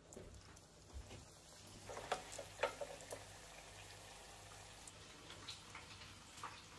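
Samosas frying in hot oil in a pan: faint crackling and popping, with a cluster of sharper pops about two to three seconds in, over a low steady hum.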